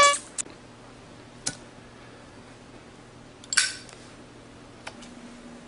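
A short pitched sound cut off right at the start, then a few sharp clicks and a short rustle about three and a half seconds in, over a faint steady hum.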